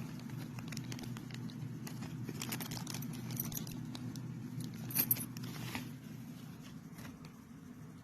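Scattered light clicks and small rattles of objects being handled, over a steady low hum, with a sharper pair of clicks about five seconds in.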